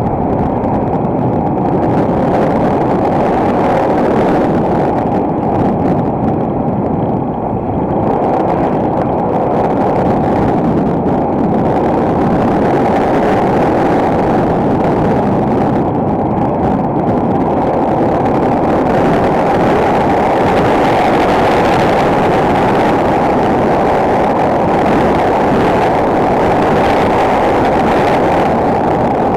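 Enduro motorcycle's single-cylinder four-stroke engine running steadily under way, loud and muffled, with wind noise mixed in.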